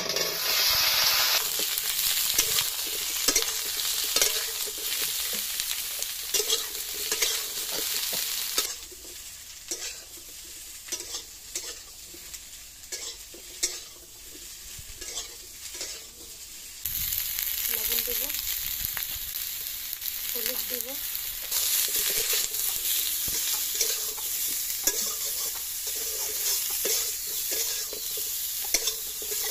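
Cut pointed gourd (parwal) tipped into hot oil in an iron kadai, sizzling at once, then frying while a metal spatula stirs and scrapes the pieces against the pan. The sizzle eases in the middle and picks up again about two-thirds of the way through.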